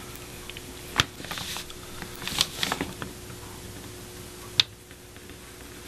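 Light handling sounds of painting with a brush on paper: a sharp click about a second in, short scratchy rustles a little later, and another click near the end, over a faint steady hum.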